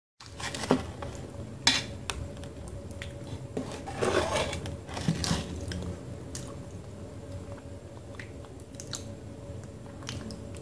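Close mouth sounds of eating a thick paste of multani mitti (Fuller's earth clay): wet, sticky squishing and chewing, with a few sharp clicks in the first two seconds. The loudest stretch of squishing comes about four to five seconds in.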